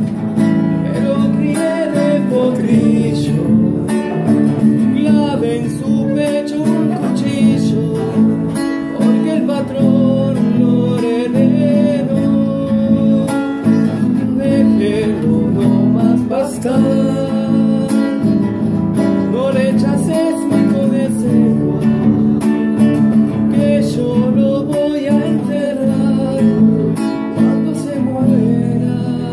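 A man singing a folk song to his own strummed nylon-string acoustic guitar, the chords ringing steadily beneath the voice.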